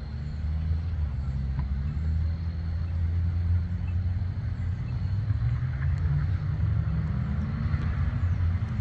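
Steady low rumble of road traffic, with a little more tyre hiss near the end as a vehicle goes by.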